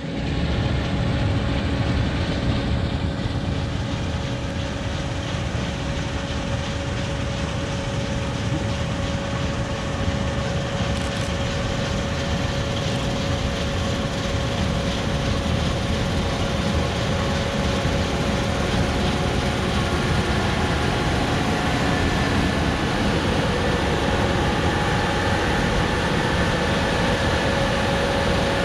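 Case IH 2366 Axial-Flow combine running under load while harvesting soybeans: a steady drone of engine and threshing machinery with a held whine over it.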